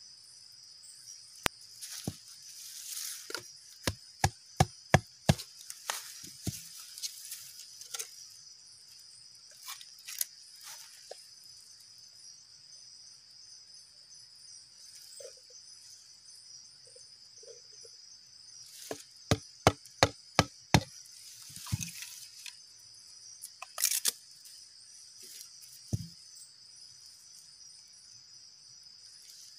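A blade chopping wood in two quick runs of sharp strokes, about three a second, with a few single strokes between, over a steady high insect drone.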